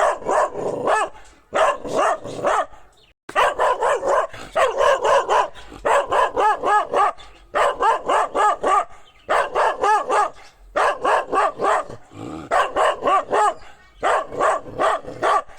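Dog barking in rapid runs of several barks each, with short pauses between the runs.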